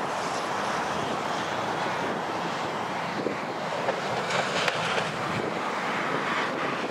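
Steady rush of traffic on a nearby highway, mixed with wind buffeting the microphone in a few brief gusts.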